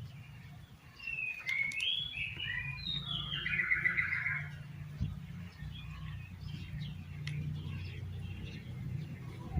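Birds chirping: a run of short rising and falling chirps and a quick trill in the first half, then fainter scattered calls, over a steady low hum.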